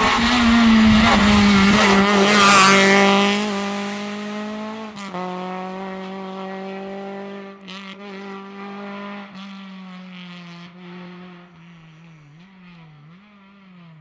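Renault Clio rally car's engine passing close at high, steady revs. It then fades as the car pulls away, with a sharp crack about five seconds in, and the revs rise and fall in the distance near the end.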